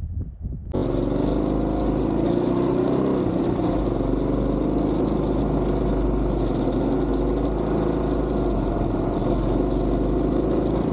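Motorcycle engine running at a steady speed while riding, an even drone with many held engine tones over road and wind noise. It starts abruptly just under a second in.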